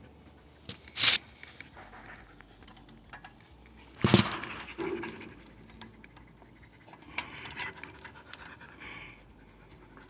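A dog panting, mixed with small clicks of hands working on plumbing fittings and two loud sharp knocks, one about a second in and one about four seconds in.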